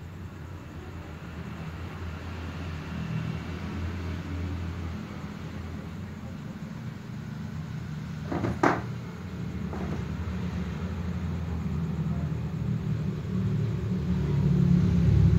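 Low steady rumble that grows louder near the end, with one sharp knock a little past the middle.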